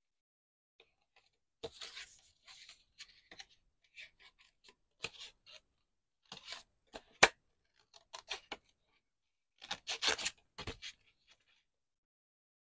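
A small pair of scissors snipping around the edge of a stamped cream cardstock image, in irregular snips with the card rustling as it is turned. There is a single sharp click about seven seconds in, and a quick run of snips around ten seconds.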